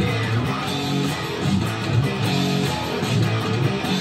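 2021 Gibson Les Paul Standard '50s electric guitar being picked in a loud, rhythmic riff built on repeating low notes.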